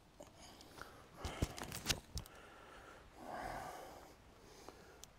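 Camera gear being handled on a tripod: a quick run of sharp clicks and knocks a little over a second in, then a short puff of breath about three seconds in.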